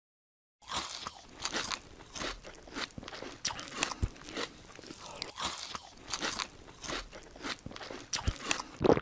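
Crisp crunching of wafer ice cream cones, a quick irregular run of small crunches and crackles, as if being bitten and chewed, with a few louder crunches near the end.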